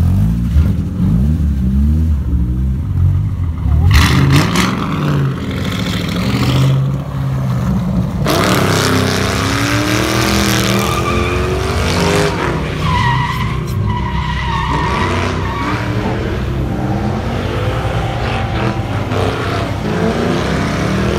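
A drift car's engine revs hard in rising and falling pulls while its rear tyres squeal and screech as it slides sideways. The tyre noise grows from about four seconds in and takes over from about eight seconds.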